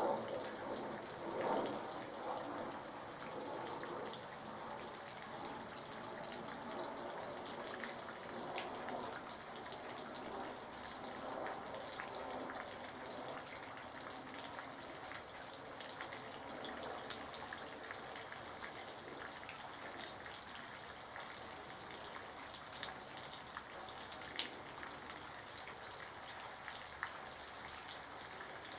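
Steady rain falling, with many separate drops ticking against nearby surfaces. It is a little louder in the first few seconds, and one sharper drop tick stands out late on.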